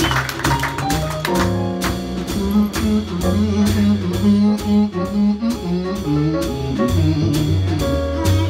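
Live jazz-blues band playing an instrumental passage between vocal lines: acoustic piano and upright double bass over a steady drum beat.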